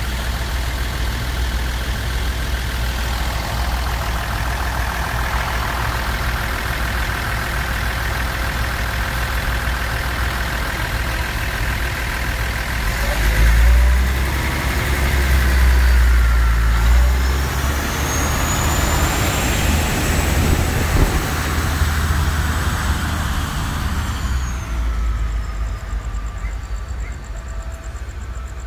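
Diesel passenger train moving slowly past at close range: a steady engine rumble that swells loudest about halfway through. A thin high whine rises and holds in the second half, then fades.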